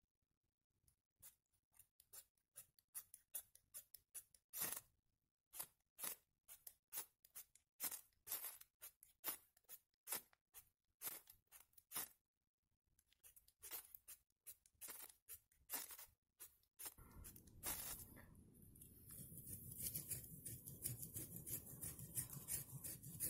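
Knife blade shaving a dry stick into tinder: a run of short scraping strokes, about two a second. About two-thirds of the way through the strokes stop and a steady hiss takes over.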